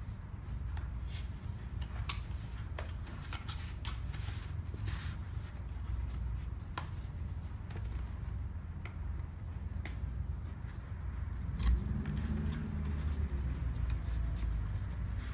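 White paperboard box being folded and its flaps tucked in by hand: scattered light scrapes, creases and taps of card, with one sharper knock about three-quarters of the way through, over a steady low room hum.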